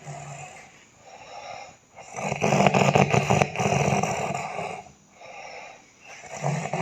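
Heavy snoring: one long, loud, rough snore lasting nearly three seconds, starting about two seconds in, with weaker snoring breaths before and after it.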